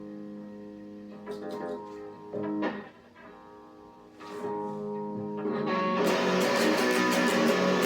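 Electric guitar played through an amplifier: a chord rings out, a few single notes are picked and one is struck hard, then about six seconds in loud, fast strumming begins.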